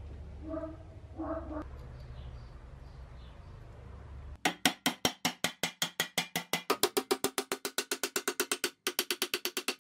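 A few faint metal clinks over a low hum, then from about four and a half seconds a hammer beats quickly and steadily on the steel shovel blade clamped in a bench vise, about five blows a second, each with a short metallic ring.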